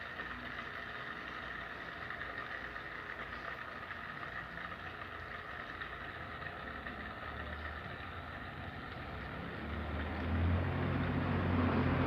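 Air from an aquarium air tube bubbling up through shallow water in a small pond, a steady fizzing. About ten seconds in, a low hum grows louder.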